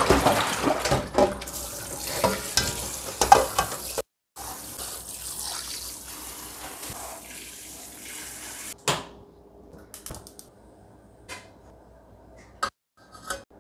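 Tap water running and splashing into a stainless steel sink as a metal bowl and a colander of chopped cabbage are rinsed, with knocks of the bowl against the sink. About four seconds in it breaks off briefly and resumes more softly. After about nine seconds it gives way to quiet with a few light clicks.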